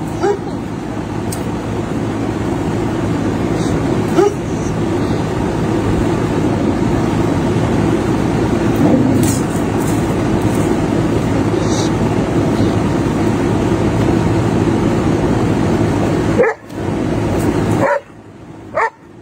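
Dog growling low and continuously, with a few short sharp barks; the growl breaks off about three-quarters of the way through.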